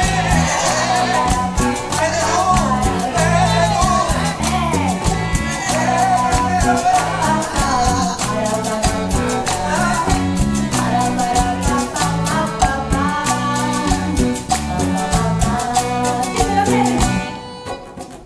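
Live folk band playing an upbeat Latin-style song with a sung melody over accordion, guitars, congas and drum kit. The music drops away briefly near the end.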